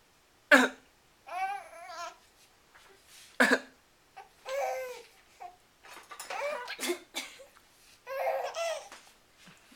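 A man coughs sharply twice, about half a second in and again about three seconds later. Between and after the coughs a baby laughs in short, wavering bouts, set off by the coughs.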